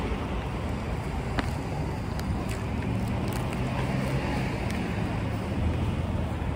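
Steady muffled rumble and rustle of a fluffy fleece coat brushing against the phone's microphone, with street traffic behind it and a few faint ticks.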